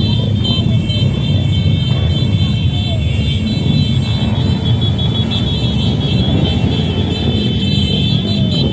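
Many motorcycle engines running and revving as a slow-moving convoy of motorcycles passes, a dense steady rumble. A steady high-pitched tone runs over it.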